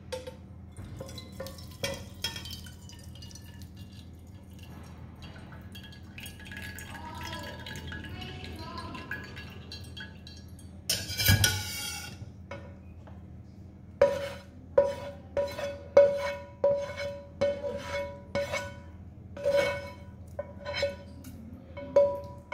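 Metal pans and a stainless steel skimmer clinking together as a shallot reduction is poured and scraped through the skimmer into a copper saucepan. There are a few light clinks at first, a dense burst of scraping and pouring just past the middle, then a run of sharp, ringing metal taps near the end.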